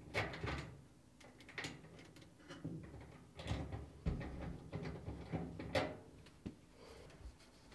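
Irregular knocks, clicks and rustling as the power cord and metal back panel of an electric dryer are handled while the cord is being disconnected.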